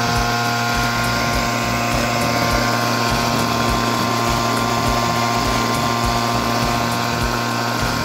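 Small petrol engine running at a steady speed, spinning an air-conditioner fan motor used as a generator.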